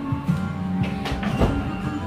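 Music playing, with steady held notes.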